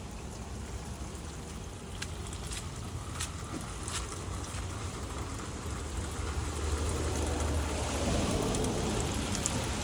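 Steady hiss of falling rain and running water, with a few sharp drip ticks, growing louder with a low rumble in the last few seconds.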